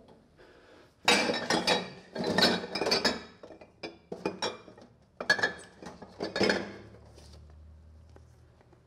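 Dishes, cups and glassware clattering and clinking as they are hastily rummaged through in a kitchen sink and dish rack, in several loud bursts that die away near the end.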